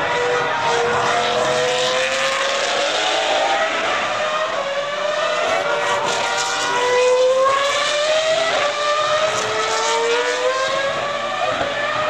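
Several Formula 1 cars' 3.0-litre V10 engines at high revs, overlapping, each pitch climbing in long rising sweeps as the cars accelerate, a fresh climb starting about nine seconds in.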